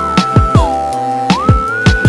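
Background music: an electronic track with a steady beat of deep kick drums that drop in pitch, under a held synth note that glides down and back up.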